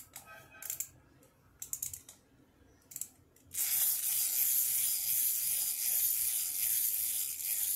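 Small mechanical crawling-baby toy: a few faint clicks, then about three and a half seconds in its gear mechanism starts a steady whirring buzz as the toy crawls along on its own.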